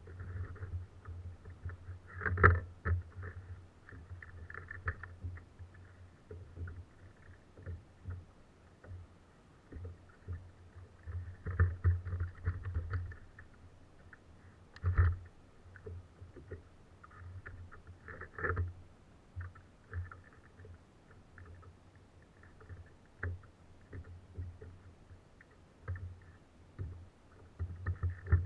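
Irregular knocks and bumps on a plastic sit-on-top kayak, with water lapping at the hull, heard through a camera mounted on the boat; a few sharper knocks stand out, about two seconds in and again halfway through.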